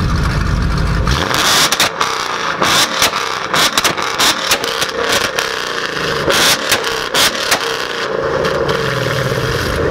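Ford Mustang 5.0 V8 with a Borla exhaust idling, then revved and held on a two-step launch limiter from about a second in, the exhaust firing rapid loud cracks and pops for several seconds before it drops back to idle near the end.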